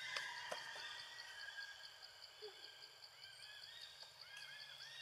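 Forest ambience: a steady, rapidly pulsing insect chorus, with a few faint clicks near the start and a run of short, repeated chirps in the second half.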